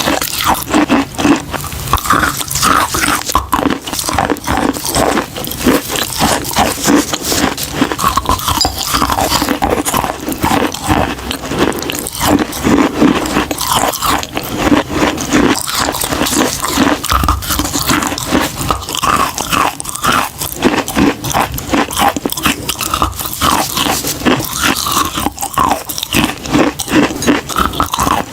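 A person biting and chewing chalk: a dense, unbroken run of crisp crunches.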